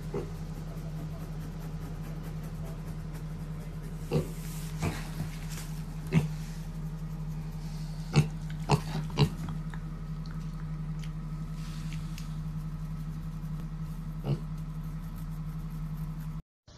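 A piglet giving short grunts, about seven scattered over several seconds, over a steady low hum.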